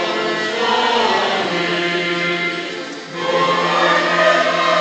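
Choir singing a Ukrainian Christmas carol in long held chords, with a brief break about three seconds in.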